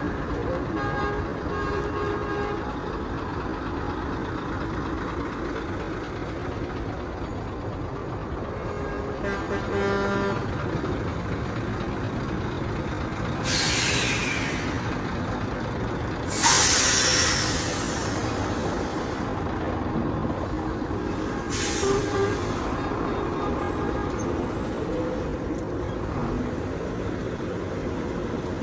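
Heavy road traffic running steadily, with horns tooting near the start and again about ten seconds in. Three short, loud hisses come partway through; the second is the loudest.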